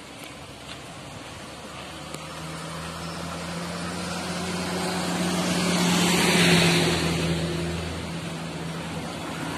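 A motor vehicle passing on the road: its engine hum and tyre hiss grow steadily louder, peak about six and a half seconds in, then fade away.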